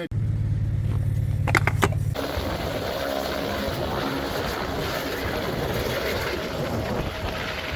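Engine running: a steady low hum for about two seconds, then an abrupt change to a rougher, noisier engine sound that holds steady.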